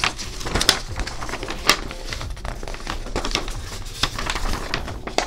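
Folded paper poster rustling and crinkling as it is handled and unfolded, with a run of sharp crackles, two of them louder, in the first two seconds.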